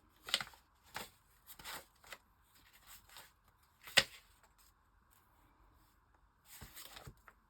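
Paper being handled: a few short rustles and light taps as a paper cut-out is moved about on a journal page, with one sharper tap about four seconds in and a longer rustle of paper near the end.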